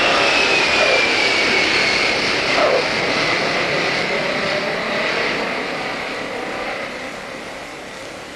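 Boeing 747's four jet engines running on the runway, a steady roar with a high whine that falls in pitch over the first couple of seconds, the sound fading as the aircraft rolls away.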